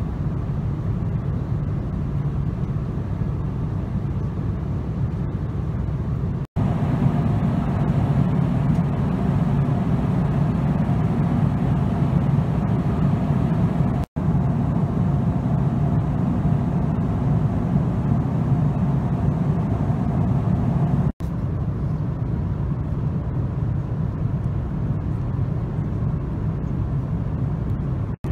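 Steady cabin drone of a Boeing 777-200ER in cruise, the engine and airflow noise heard from an economy seat. The drone is cut by three brief dropouts and is a little louder in the middle stretch.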